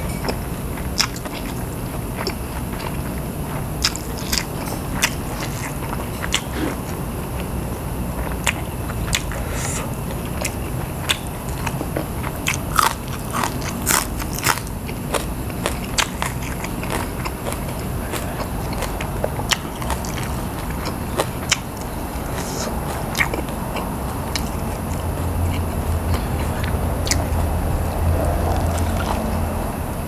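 A person chewing food close to the microphone, with many short crisp crunches, thickest in the middle, over a steady low hum.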